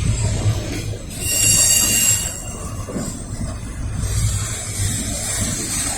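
Freight train cars loaded with trash containers rolling past with a steady low rumble; about a second in, a high-pitched metal squeal from the wheels rings out for about a second and then fades.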